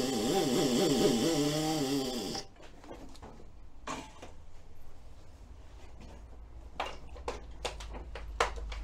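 Compressed air blowing from a shop air hose's brass nozzle held against the inside of a tyre: a loud hiss with a wavering, fluttering tone that cuts off suddenly about two and a half seconds in. Then a few light clicks and knocks as the tyre is handled.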